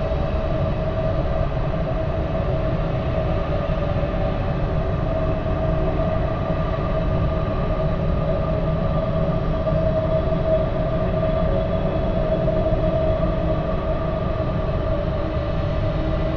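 Eerie supernatural-themed ambient drone: a steady low rumble under a sustained mid-pitched hum, running without a break.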